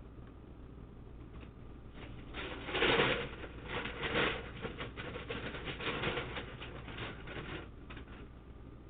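Objects being moved around and handled on a desk: a quick run of small clicks, taps and rustles that starts about two seconds in, is loudest soon after, and eases off near the end.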